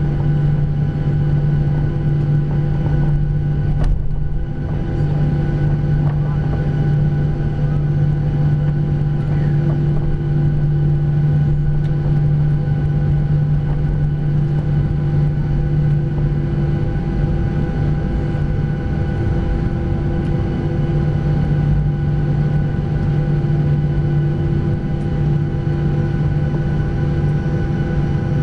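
Jet airliner's engines running at a steady setting, heard inside the cabin: a constant low hum with several held tones over an even rush of noise.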